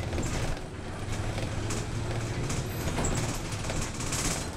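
Double-decker city bus running, a steady low engine drone under road noise, with a few light clicks and rattles.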